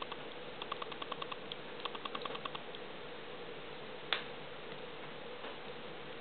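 Firewood crackling in a Vermont Castings Aspen cast-iron wood stove burning with its door open: runs of quick small crackles in the first few seconds, then one sharp pop about four seconds in.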